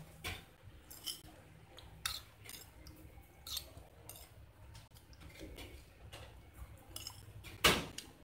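Faint, scattered light clicks and clinks, like small hard objects tapped or handled, with a louder burst of noise near the end.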